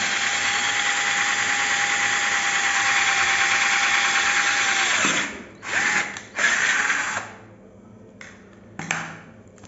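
12 V Smartbuy cordless drill running steadily as an 8 mm wood auger bit bores through a wooden plank. The motor stops about five seconds in and runs again in a short burst a second later. A single click comes near the end.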